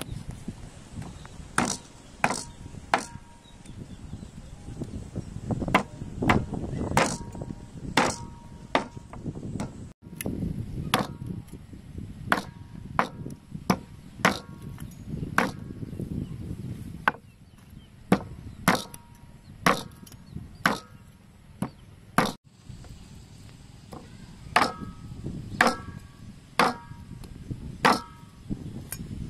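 A meat cleaver chopping raw pork ribs into pieces on a thick round wooden chopping block. The sharp chops come at uneven spacing, roughly one a second, and some leave a brief ring from the blade.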